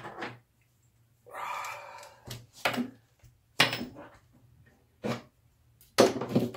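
Clicks and knocks of hand tools being picked up and set down on a workbench, with a brief rustle about a second in. The loudest knocks come about halfway through and again near the end.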